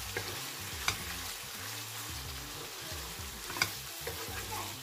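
Chicken pieces sizzling as they fry in oil in a nonstick pan while being stirred with a wooden spatula. Two sharp clicks stand out, one about a second in and one about three and a half seconds in.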